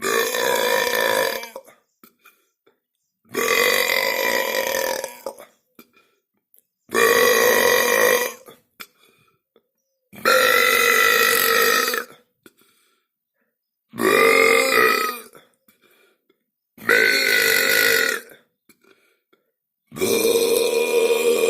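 A person burping: a series of seven long, drawn-out belches, each lasting about one and a half to two seconds, with short silent pauses between them.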